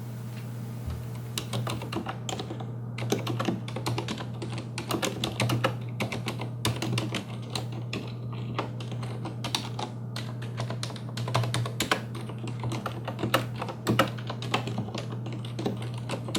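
Typing on a Corsair STRAFE RGB mechanical keyboard with Cherry MX Silent linear, non-tactile switches: a steady run of irregular key strokes starting about a second in.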